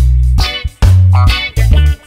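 Background music: plucked guitar notes over a bass line, each note struck sharply and fading.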